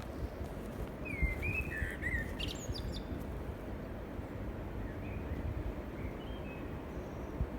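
Wild birds calling: a few short slurred chirps about a second in, a quick run of higher notes near three seconds, and fainter calls around five to six seconds, over a steady low rumble.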